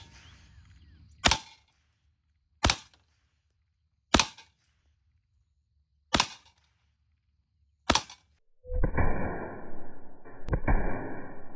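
Five sharp shots from a semi-automatic .45 calibre PCP air rifle, the BinTac S45, fired about one and a half seconds apart. About two-thirds of the way through, a dense, continuous rumbling noise with a muffled top end starts and runs on.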